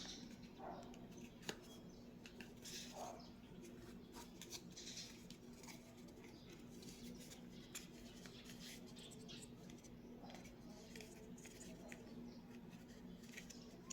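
Near silence: a faint steady low hum with scattered soft clicks and rustles, as of hands working clay.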